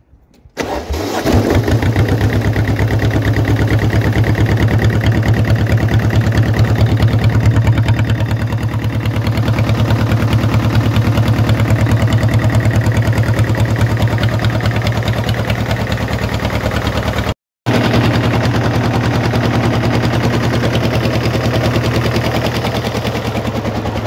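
Diesel garden tractor engine starting on a short crank about half a second in, catching at once because it was warm from just running, then running steadily with an even, pulsing low hum.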